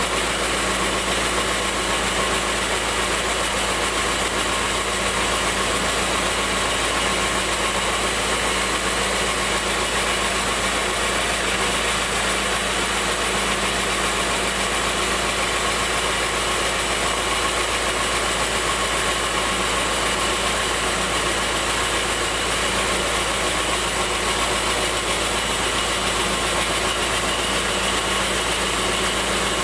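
Sawmill bandsaw machinery running steadily with an even mechanical hum that does not change.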